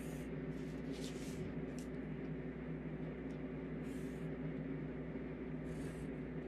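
Pencil drawn along a ruler on drawing paper: several short scratchy strokes over a steady low room hum.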